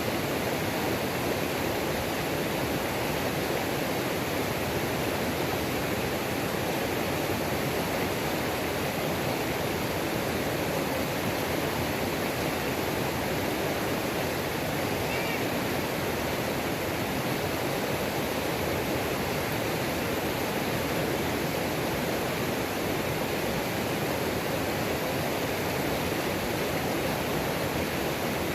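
Waterfall on a mountain creek: water pouring and splashing over rocks in a steady, unbroken rush.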